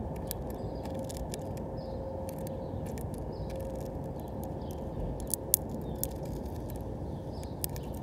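House finch pecking at and husking black sunflower seeds on a tray feeder close to the microphone: irregular sharp clicks and ticks of beak on seed and shell, with a few louder cracks about five and a half seconds in, over a steady low background rumble.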